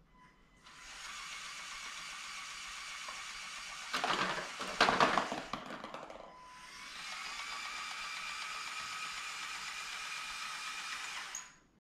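Electric motors of a Lego Technic Liebherr 9800 excavator whirring steadily as the bucket tips. About four seconds in there is a loud two-second clatter of plastic ping-pong balls dropping into a Lego dump truck's bed, some bouncing onto the wooden floor. The motors then whir again as the arm swings back, and cut off abruptly near the end.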